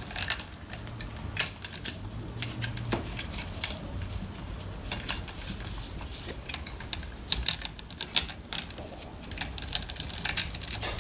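Steel saw chain being fitted by hand onto a chainsaw's guide bar and sprocket: the links clink and click irregularly against the bar, in small clusters that come thickest in the later part.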